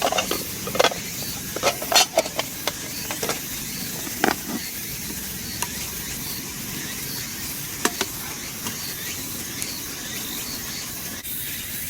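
A steady hiss, with sharp clicks and light knocks scattered through the first few seconds and a few more later. A faint high chirp repeats about once a second.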